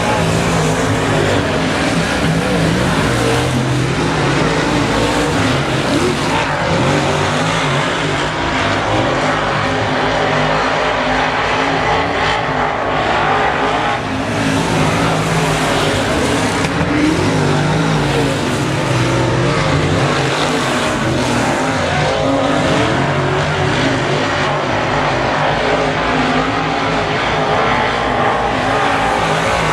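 A field of semi late model race cars running laps together, engines loud and continuous, their pitch rising and falling as the cars come off and into the turns.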